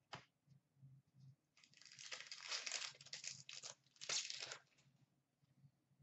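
Foil wrapper of a trading-card pack torn open and crinkled, a long stretch of crinkling about a second and a half in and a shorter burst a little after four seconds.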